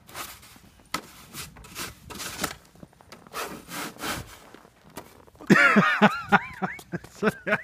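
A snow shovel's blade scraping across a concrete driveway in repeated strokes, pushing thin snow. Past the middle, a run of short, loud, pitched cries cuts in over the scraping and is the loudest thing heard.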